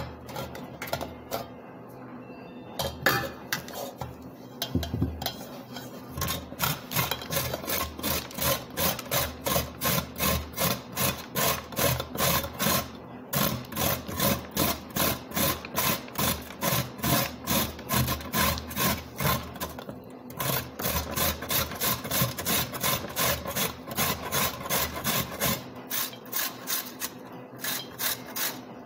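A raw carrot being grated on a metal box grater. After a few scattered knocks, it settles into a steady run of rasping strokes at about two a second, with two brief pauses, and it tails off near the end.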